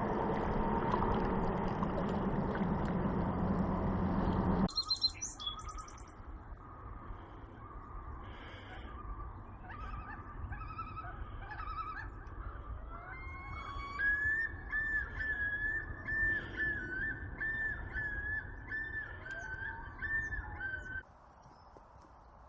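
Loud, dense rushing noise for the first few seconds that cuts off suddenly, then wild birds calling, with scattered chirps and, in the second half, one bird repeating a quick up-and-down whistled phrase several times a second before it stops abruptly.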